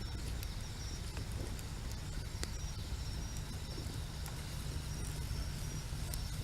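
Night insects chirping at a steady high pitch in pulsing stretches, over a low, steady rumble of waves on the shore, with a few sharp clicks.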